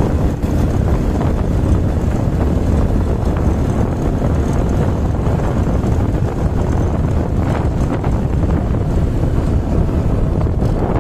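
Wind buffeting the microphone of a vehicle moving at road speed, a steady rushing noise with a low rumble of engine and tyres underneath.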